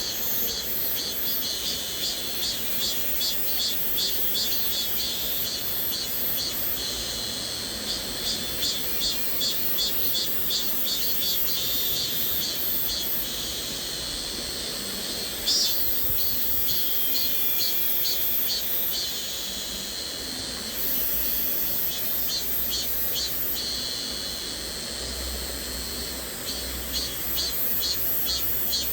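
Cicadas buzzing high-pitched in rapidly pulsing waves that swell and fade, over the steady rush of a flowing stream. A brief sharp click about halfway through.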